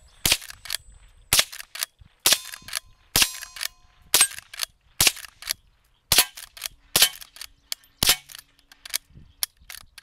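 Henry lever-action .22 rifle fired in quick succession, about one sharp shot a second with quieter clicks of the lever being worked between shots. Some hits on the steel targets ring briefly after the shot.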